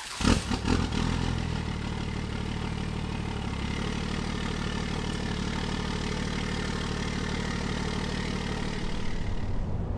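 Truck engine starting, with a few loud knocks in the first second, then running steadily at an even idle.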